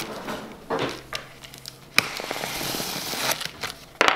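Packing tape on a cardboard box being slit with a knife, a crackling, scraping run of tape and cardboard noise with a few sharp clicks as the blade catches.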